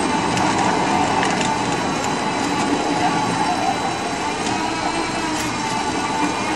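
Quarry stone-cutting chain saw machine running steadily, its chain cutting into a marble block: a dense mechanical cutting noise with a few faint ticks.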